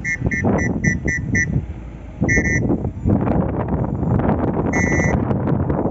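Steady low rumble of wind on the microphone, with short high beeps over it: six quick ones in the first second and a half, then two more about two and a half and five seconds in.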